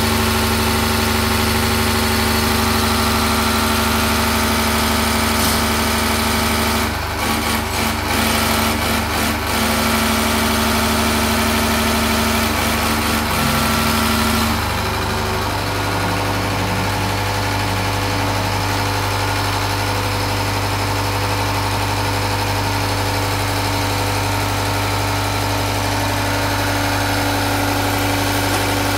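Diesel injection-pump test bench driving an inline Bosch-type injection pump: a steady mechanical hum with several steady tones and a hiss. A few brief knocks come about a third of the way in, and about halfway the hiss drops and the hum changes as the bench's running speed changes, then it runs steadily again.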